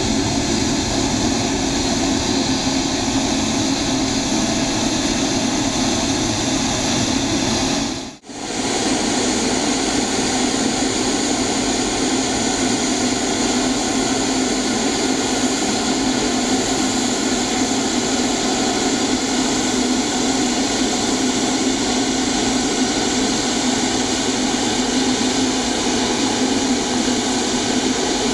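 Boeing 777-300ER's GE90-115B turbofan engines running at taxi power close by: a steady jet whine over a low rumble. The sound cuts out for a moment about eight seconds in.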